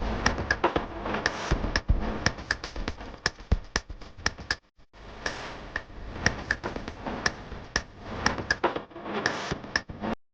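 Quick, irregular clicks and taps of small hand tools and parts on a smartphone being taken apart or repaired, with a brief pause just before halfway.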